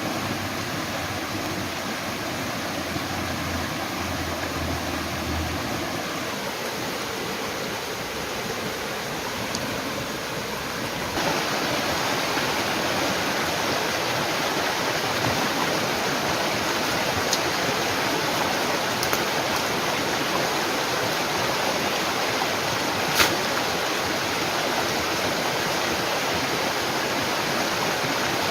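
Steady rushing of flowing water, growing louder about eleven seconds in, with a single sharp click later on.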